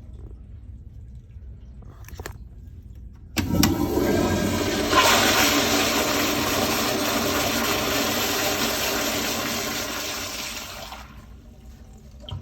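Crane Whirlton toilet flushing: a sudden loud rush of water starts about three seconds in, runs for about seven seconds and then tapers off.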